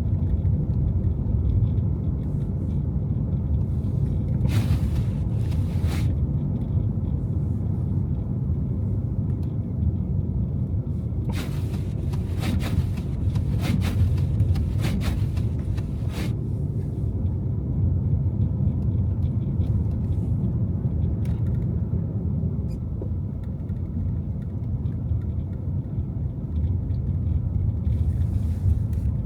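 A car driving, a steady low road and engine rumble, with short hissing swishes about four seconds in and a cluster of them from about 11 to 16 seconds in.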